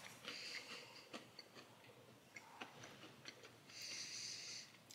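Faint chewing of a chocolate-backed cookie, with small scattered mouth clicks, and a soft breath through the nose about four seconds in.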